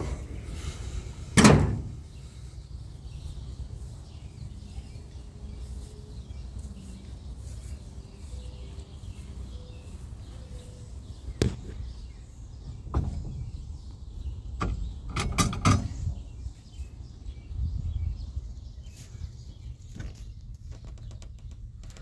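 Car body and door handling on a 1957 Chevrolet Bel Air: one loud metal thump about a second and a half in, then a few lighter knocks and clicks between about 11 and 16 seconds in, over a steady low rumble.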